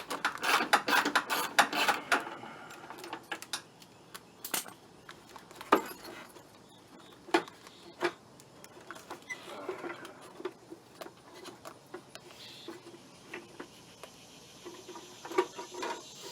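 Clicking and rattling from hand work on a pickup's headlight assembly and its mounting bolts: a quick run of clicks in the first two seconds, then scattered single clicks and knocks.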